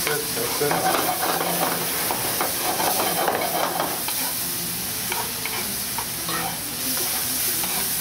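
Eggplant, tomato, onion and garlic sizzling in hot olive oil in a pan while being stirred and mashed down, with a steady frying hiss and frequent scrapes and taps of the utensil against the pan.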